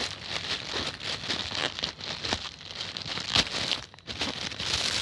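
Wrapping being handled and pulled open, crinkling and rustling with many small sharp crackles.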